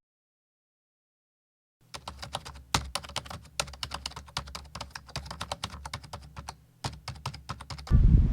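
Dead silence for about two seconds, then rapid computer-keyboard typing, a quick irregular run of key clicks over a low hum, lasting about six seconds and cutting off suddenly.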